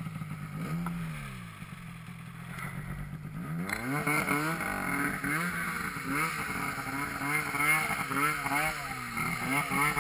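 Arctic Cat M8000 snowmobile's 800 cc two-stroke twin idling, with a quick blip of throttle about a second in. From about four seconds in it revs up and down over and over as the sled is ridden through deep powder.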